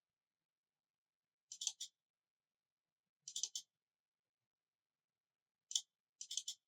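Computer mouse clicking in short clusters of two or three quick clicks, about four times, with near silence between.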